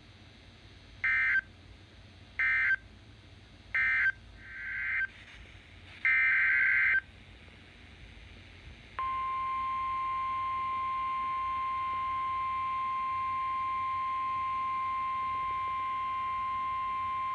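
Emergency Alert System SAME data bursts: three short, equal warbling bursts about a second and a half apart, the end-of-message code, then a burst that swells up and a longer burst of the same data sound. After a two-second pause, the steady single-pitched 1050 Hz NOAA Weather Radio warning alarm tone starts and holds.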